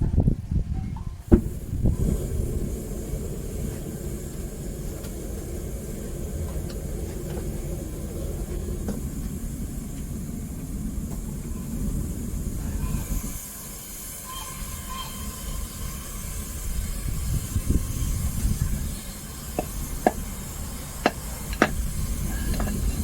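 Homemade propane burner firing a metal-melting furnace: a steady low rumble with hiss. About halfway the rumble drops and a higher hiss takes over for a few seconds before the rumble returns. A few sharp metallic clinks come near the end.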